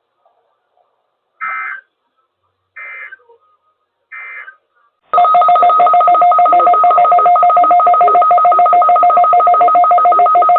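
Emergency Alert System test signal: three short digital data bursts of the SAME header, then about five seconds in a loud, steady two-tone alert tone with a fast flutter begins.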